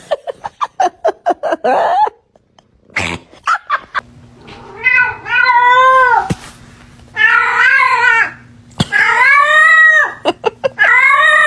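A cat giving a quick run of short cries, then four long, wavering yowls.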